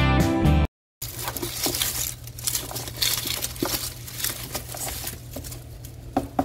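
Background music cuts off under a second in. Then a hand rummages through a plastic basket of onions and garlic: dry, papery skins crinkle and rustle, and bulbs click and knock against the plastic.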